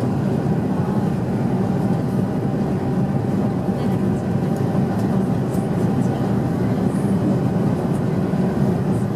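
Steady, loud cabin noise of an airliner rolling along the runway just after landing, with engine and rolling noise blended into one low, even rumble.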